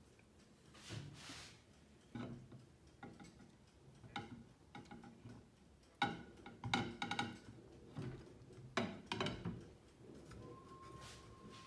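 Scattered light clicks and knocks of fingers and asparagus spears against ceramic plates and a bowl as the spears are dredged in flour and laid in beaten egg, with a cluster of sharper clinks about six to seven seconds in.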